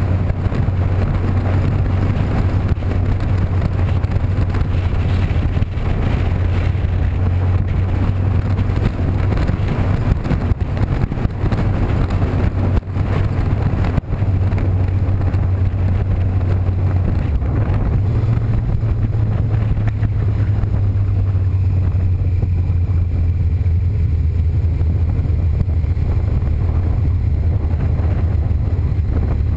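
A motor vehicle on the move: a steady low engine drone with road and wind noise, its pitch rising slightly about two-thirds of the way through and easing back near the end.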